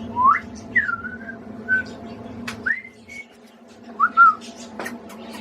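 A person whistling a string of short, clear rising and falling notes to a pet budgie, with two sharp clicks among them and a steady low hum underneath.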